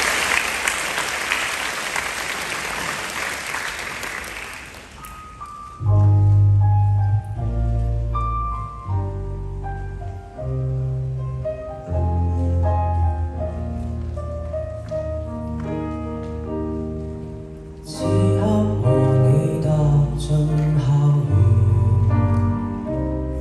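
Audience applause for about five seconds, dying away. Then a live student ensemble starts a song, with strong electric bass notes under acoustic guitar, cello, violin and piano. The music grows fuller and brighter about three-quarters of the way through.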